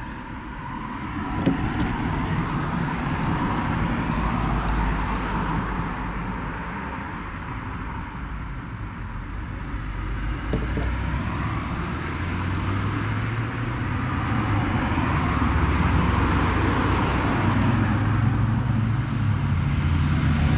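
Road traffic passing: a steady rush of tyres and engines that swells and fades slowly, with a low engine hum growing in the second half. A few short clicks sound over it, mostly in the first few seconds.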